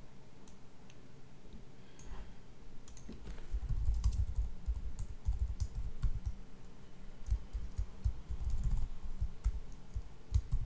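Typing on a computer keyboard: irregular key clicks with dull low thumps, sparse at first and a fast, dense run from a few seconds in.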